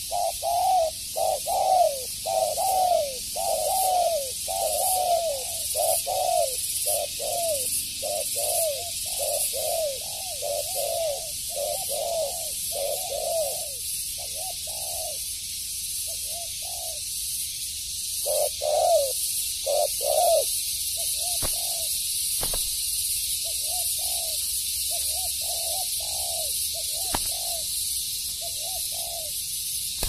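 Spotted dove (tekukur) cooing: a quick run of short coos, each falling in pitch, that breaks up into scattered short phrases after about 14 seconds. A steady high hiss runs underneath.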